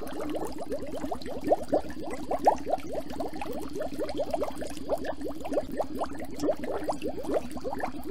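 Underwater sound from a camera submerged in murky water: dense bubbling and gurgling made of quick rising blips, several a second, over a low steady hum.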